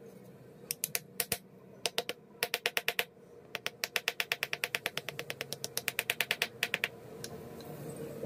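A mallet tapping a metal fish pattern down into casting sand to bed it for a sand mould: a few short groups of quick taps, then a longer fast run of about seven taps a second that stops about a second before the end. A faint steady hum lies underneath.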